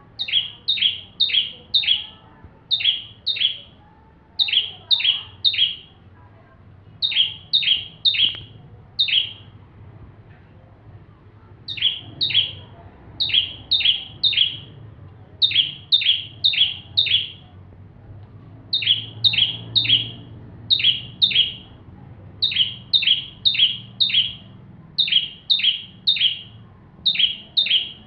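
Bar-winged prinia (ciblek) calling steadily: sharp, high, downward-slurred chip notes in quick runs of two to four, the runs repeating every second or so.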